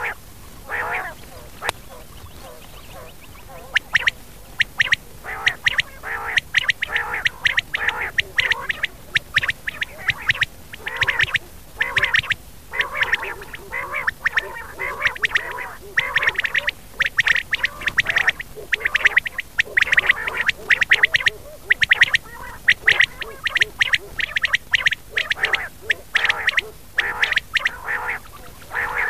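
Rain quail calling over and over: quick clusters of sharp, high notes repeated with short gaps, a quail-call lure recording used to draw birds to the nets.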